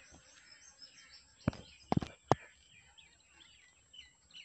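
Small birds chirping and twittering outdoors, with a few sharp clicks near the middle.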